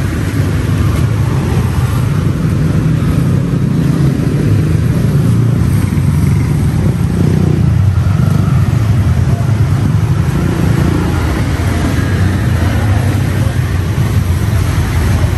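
Steady low rumble of motor traffic, with faint voices in the background.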